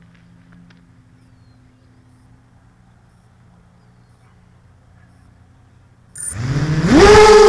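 A ZMR250 quadcopter's four DYS 1806 brushless motors with Gemfan 5040 propellers, faint at first, then spinning up suddenly about six seconds in to takeoff throttle: a loud whine that climbs steeply in pitch and levels off near the end.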